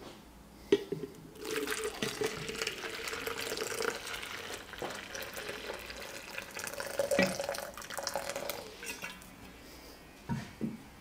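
Water running from a tap for several seconds, starting just over a second in and stopping about nine seconds in, as water is drawn for a barber's hot towel. A sharp click comes just before it starts, and a knock about seven seconds in.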